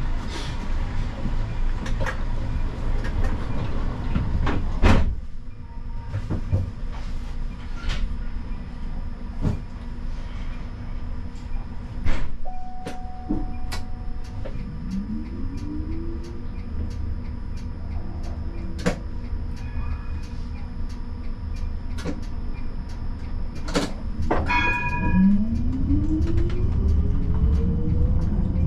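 Siemens Combino tram heard from the driver's cab: a steady low hum while standing, with scattered clicks and knocks. Twice an electric traction whine rises in pitch, the longer one near the end as the tram gets moving, just after a short bell-like ring.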